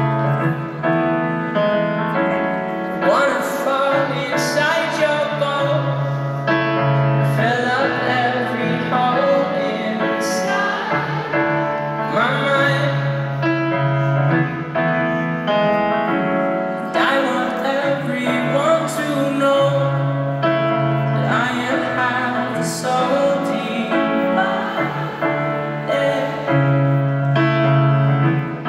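Live piano music over an arena's sound system: sustained piano chords with a voice singing above them, heard from high up in the stands.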